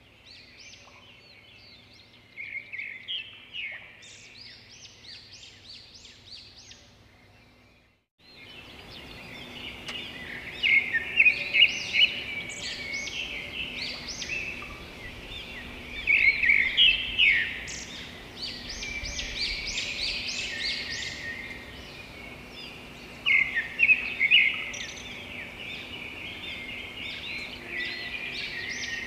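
Many small birds chirping and chattering in rapid, overlapping calls. The sound cuts out briefly about eight seconds in, then returns louder.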